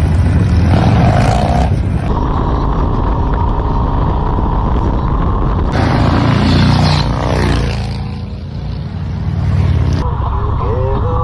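Several Indian V-twin motorcycles pulling away and riding past, their engines rumbling and revving, with a swell as bikes go by about two-thirds of the way through. The sound changes abruptly a few times. Near the end it turns into one bike's engine heard from the rider's seat.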